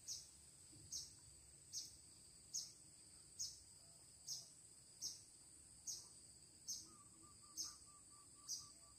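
Faint insect calls: a steady high-pitched whine with a short chirp repeating evenly a little more than once a second. A faint run of quick lower pips comes in near the end.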